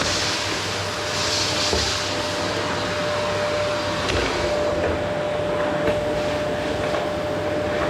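Vacuum cleaner running steadily over a wooden floor, a constant whine over its rushing noise. The hiss swells briefly about a second and a half in, and there are a couple of light knocks.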